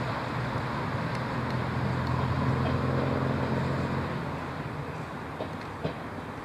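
First-generation diesel multiple unit's underfloor diesel engines running, a steady low note that swells for a couple of seconds and then eases back.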